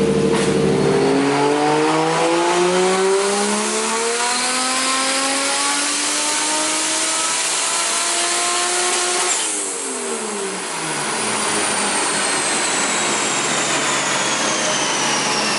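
Lexus SC300's big-single-turbo 1JZ inline-six on a chassis dyno at full throttle: the revs climb steadily for about eight seconds in one pull. Then the throttle snaps shut and the revs fall away, and a high whine slowly drops in pitch as it winds down.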